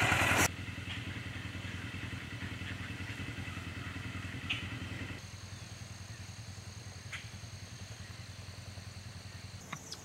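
Engine of a Kubota side-by-side utility vehicle idling steadily. A faint, steady high tone joins about halfway through.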